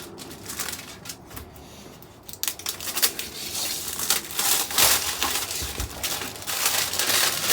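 Plastic wrapping being torn and crinkled off a cardboard box, in irregular crackling bursts, quieter for a moment about a second in, then louder and busier from about two and a half seconds in.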